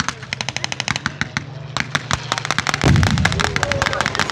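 Rapid, irregular cracks of pyrotechnic gunfire effects in a staged air battle. A heavy blast from a ground pyrotechnic charge goes off about three seconds in, over a steady low hum.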